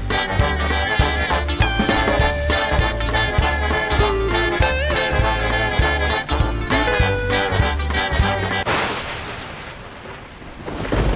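Upbeat swing-style backing music with a thumping bass beat, which stops about nine seconds in and gives way to a rushing noise that swells and fades. A loud low rumble starts right at the end.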